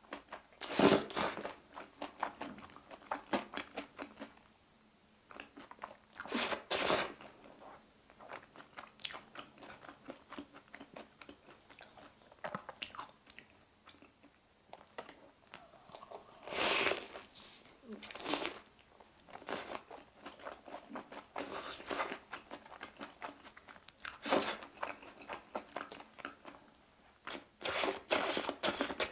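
Close-miked biting and chewing of a fried corn dog coated in crispy potato cubes with a mozzarella filling: several loud crunches a few seconds apart, with crackly chewing in between.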